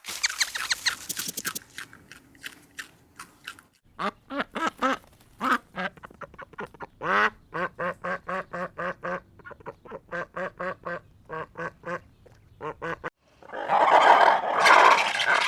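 Ducks quacking in a long run of short calls, several a second. About two seconds before the end it cuts suddenly to a louder, denser clamour of poultry calls.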